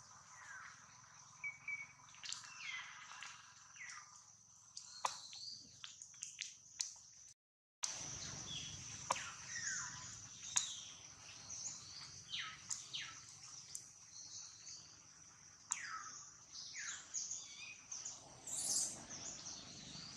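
Forest ambience: many short, downward-sliding bird chirps over a steady high-pitched buzz, with scattered light clicks. The sound cuts out for a moment about seven and a half seconds in.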